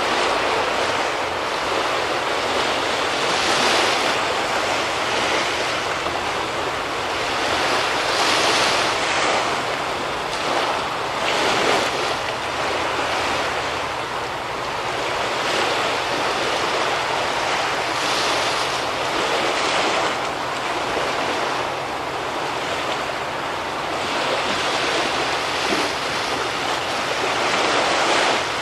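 Sea waves washing ashore, the wash swelling and easing every few seconds, with a faint steady low hum underneath.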